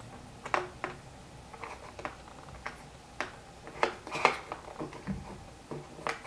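Scattered light clicks and taps of fingers working a small ball bearing into the side plate of a Shimano Chronarch Ci4+ baitcast reel, metal and hard plastic knocking together, the loudest cluster a little after the middle.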